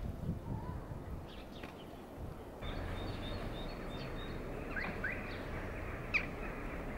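Outdoor city background noise, a steady low hum, with several short, high bird chirps scattered through it. The background steps up a little about two and a half seconds in.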